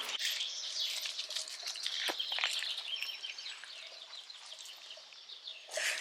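Birds chirping, with light rustling and pattering, fading off towards the end.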